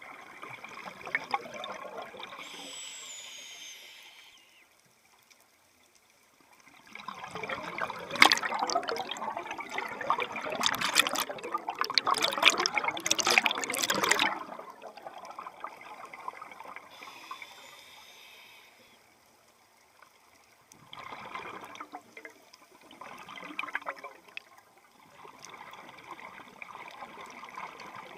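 Scuba diver breathing through a regulator underwater, about two breath cycles. Each has a short high hiss on the inhale, then a loud crackling rush of exhaled bubbles lasting several seconds.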